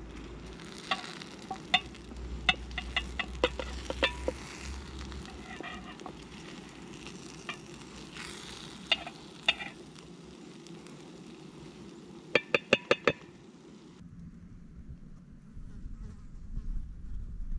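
Eggs and sausage meat sizzling in a camping frying pan on a gas stove, with a wooden spoon stirring and knocking against the metal pan: scattered sharp taps, then a quick run of about six taps. About two-thirds through this gives way to quieter forest ambience with insects buzzing.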